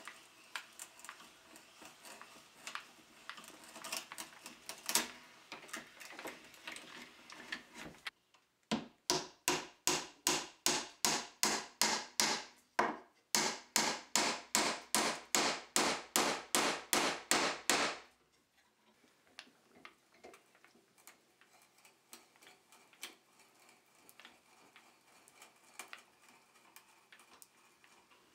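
A hand drill boring into pine, the bit crackling as it cuts and lifts chips. About eight seconds in, a run of loud, even strokes of a hand tool on wood starts, about two and a half a second with a short break halfway, and lasts about ten seconds. After that, a brace and auger bit boring quietly with faint scattered ticks.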